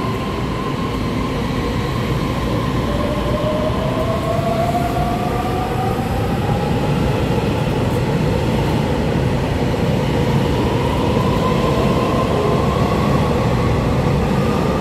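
A Taiwan Railway EMU3000 twelve-car electric multiple unit pulling out of the station and picking up speed close by. A steady rolling rumble is overlaid by an electric whine that climbs in pitch twice as it accelerates.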